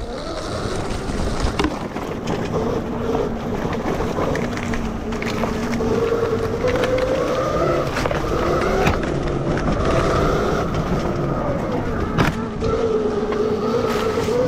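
Electric enduro motorcycle's 12 kW MG160A motor and Fardriver controller whining, the pitch drifting up and down with the throttle. Under it, the bike's tyres and chassis rattle over rough dirt, with a few sharp knocks.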